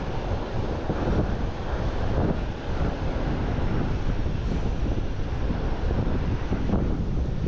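Strong wind buffeting the microphone, a steady low rumble, with waves breaking on the beach behind it.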